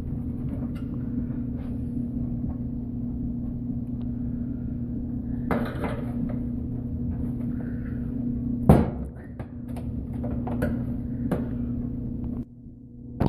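Knocks and clicks from a washing machine's sheet-metal back panel and its spring clips being pushed and worked loose, one louder knock near the middle. A steady electrical hum runs underneath and cuts off about twelve seconds in.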